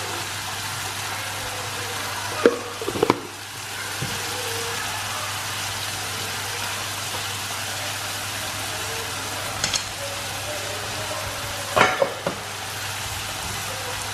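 Onions frying in oil in a stainless steel kadai, a steady sizzle throughout. A few sharp knocks against the pan come about two to three seconds in and again near the end.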